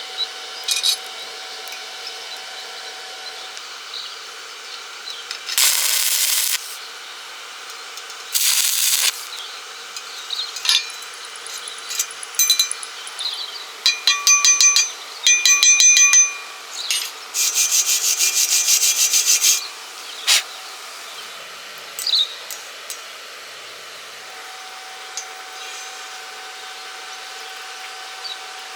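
Separate bursts of harsh, high scraping hiss from hand or power tools working on metal, each lasting about half a second to two seconds, with quieter stretches between. A cluster of ringing pulses comes about two-thirds of the way through.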